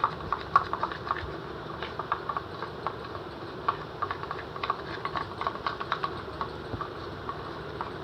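Irregular light clicks and taps, several a second and uneven in spacing, over a steady low background noise.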